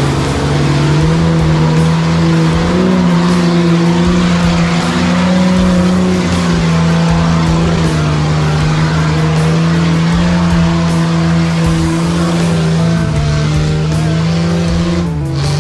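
Off-road 4x4 truck engine running loud and steady under load, its pitch stepping up about a second in and dropping near the end, mixed with background rock music.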